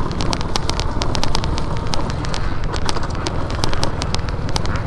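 Off-road motorcycle ride on a forest dirt trail heard from an on-board camera: a steady low rumble with wind on the microphone, peppered with many irregular sharp clicks and crackles.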